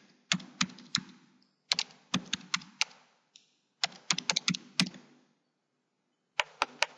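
Computer keyboard typing in four short bursts of keystrokes, with a pause of about a second before the last burst.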